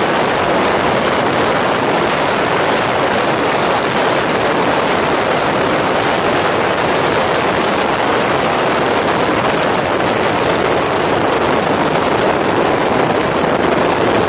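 Steady loud rush of wind buffeting the microphone, mixed with tyres rolling on a dirt trail, as an electric mountain bike is ridden fast.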